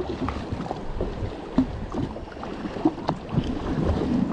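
Choppy waves slapping and splashing against the hull of a drifting jet ski, with irregular short knocks.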